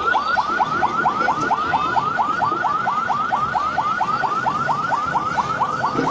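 Police vehicle's electronic siren on a fast yelp: a rising sweep repeating about five times a second.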